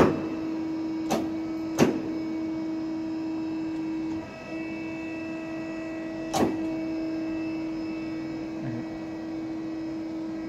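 Daewoo Puma 300 CNC lathe humming steadily while its tailstock is worked, with sharp clunks at the start, about one and two seconds in, and again a little past six seconds as the tailstock quill and live centre move and stop.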